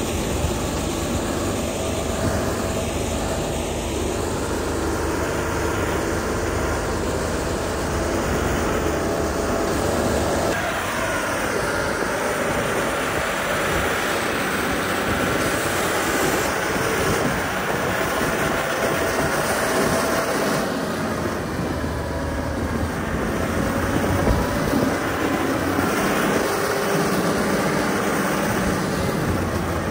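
Diesel engine of a Liugong motor grader running steadily while working gravel, its engine note shifting about ten seconds in.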